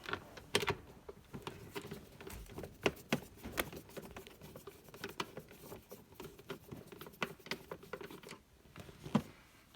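Irregular small clicks and taps of screws being driven to fasten the plastic seat of a ride-on toy car, over a faint steady hum that stops about eight seconds in.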